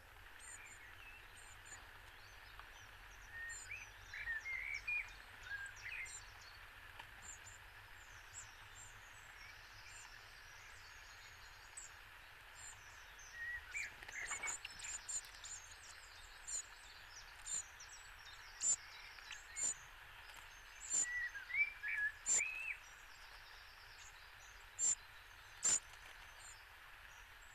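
Wild birds chirping and singing short phrases, with a song thrush knocking a snail shell against a stone anvil to crack it: a string of sharp taps about a second apart through the second half.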